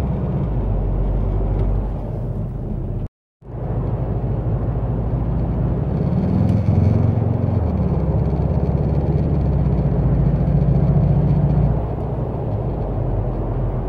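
Cabin noise of a Volkswagen convertible driving at highway speed: steady engine and road noise with a low hum, carrying the rattle-buzz that the owner traces to the overhead console holding the lights and microphone and that the dealer calls normal for a convertible. The sound drops out for a moment about three seconds in.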